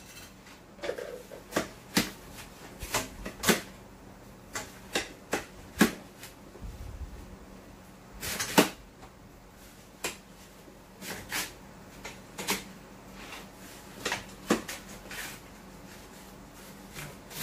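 Irregular clinks and knocks of kitchen utensils, dishes and a steel cooking pot being handled, one to three sharp knocks a second, over a faint steady hum.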